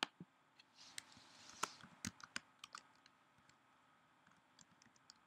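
Faint typing on a computer keyboard: a scatter of separate sharp key taps and clicks, thickest in the first half and thinning out after.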